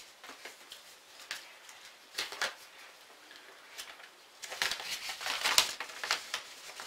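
Paper instruction leaflet rustling and crinkling as it is handled, in scattered bursts, busiest in the second half.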